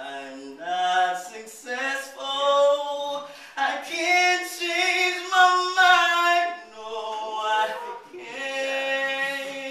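A solo voice singing a slow song without accompaniment, moving between sustained notes and holding several long notes near the middle.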